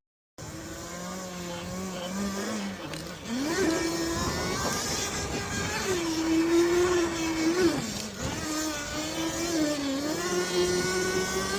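Electric bike's motor and chain drive running on a ride: a steady whine that dips and rises in pitch several times as the speed changes, over road and drivetrain noise.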